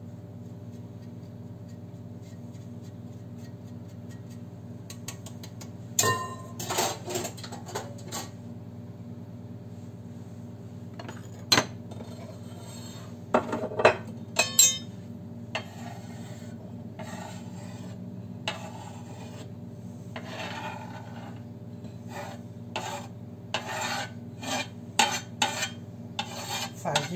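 Rasping, scraping strokes of hard cheese being grated and scraped at a wooden cutting board, with clatters of plates and utensils, over a steady low kitchen hum. The first six seconds hold only the hum; the rasping strokes come in a run from about the middle to the end.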